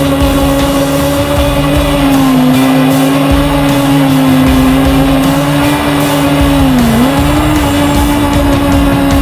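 Formula Student race car's engine running at high, fairly steady revs as the car threads a cone course, the pitch wavering with throttle and dipping sharply then recovering about seven seconds in.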